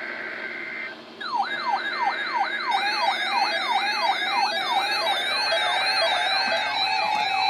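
A NOAA Weather Radio SAME data burst, two steady high tones, cuts off about a second in. Then several weather alert radios go into alarm together for the severe thunderstorm watch: a siren-like tone falling in pitch about three times a second, with a higher warbling alarm joining and more alert tones stacking up.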